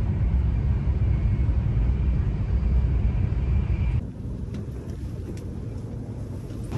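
Taiwan High Speed Rail 700T train running at speed, heard inside the passenger car as a steady low rumble with a faint high whine. About four seconds in it drops abruptly to a quieter cabin hum, with a few faint clicks.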